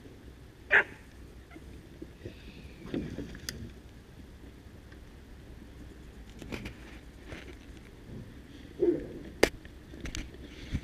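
Steady low rumble of wind and handling noise on a handheld camera, broken by scattered short knocks and clicks. There is a loud brief sound about a second in and another near nine seconds.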